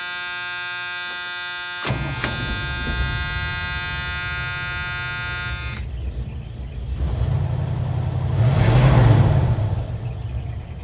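Dashboard warning buzzer of a 1977 Ford F100 sounding one steady tone as the key is turned on, cutting off about six seconds in. About two seconds in, the truck's engine is started by the new ignition switch and runs with a rough low rumble, revving up and settling again near the end.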